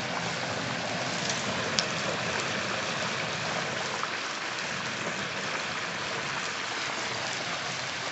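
Hot oil in a deep-fryer pot bubbling and sizzling steadily around a whole turkey just lowered in, with a few sharp pops of spattering oil.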